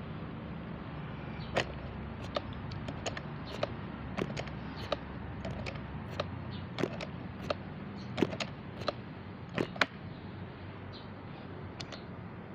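Irregular sharp clicks and knocks, about two dozen, with two louder knocks past the eight-second mark, over a steady low hum: handling noise on the air rifle and its scope-mounted camera while the scope is adjusted and aimed.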